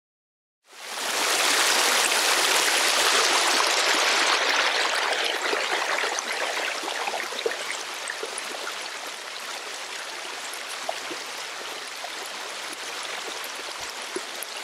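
Shallow stream rushing over rocks. It starts about a second in, is loudest for the first few seconds, then slowly grows softer.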